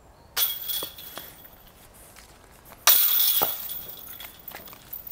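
Disc golf discs striking the chains of a basket twice: a jingling metal chain rattle about half a second in and a louder one about three seconds in, each ringing away over a second or so.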